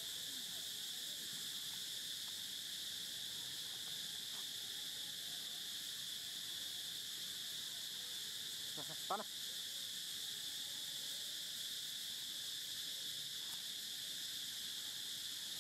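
Steady, high-pitched insect chorus. About nine seconds in comes one brief squeaky call, the loudest sound, from a long-tailed macaque.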